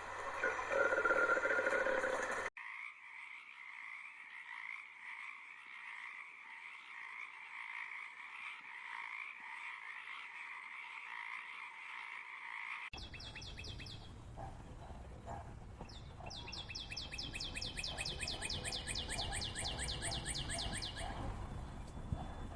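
Animal calls: a steady, high-pitched chorus that changes abruptly about halfway to rapid pulsed trills of around seven pulses a second.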